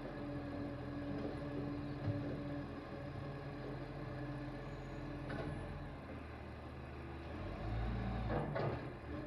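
Side-loader garbage truck's diesel engine running with a steady hydraulic hum as the lifting arm retracts, with a few knocks from the arm. Near the end the engine gets louder as the truck moves off.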